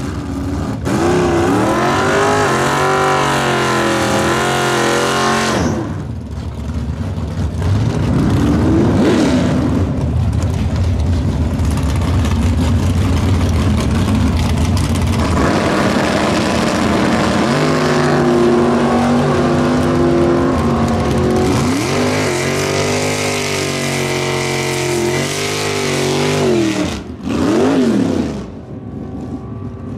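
Third-generation Pontiac Firebird drag car's engine revving hard through a tyre-smoking burnout, then idling with throttle blips while it stages. Near the end comes a sharp rising rev as it launches, and the sound falls away as the cars pull off down the strip.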